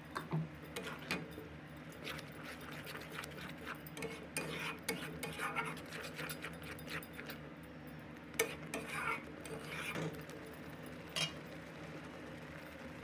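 A spatula scraping and knocking against a metal kadai as thick frying masala is stirred, in irregular clicks and scrapes over a steady low hum.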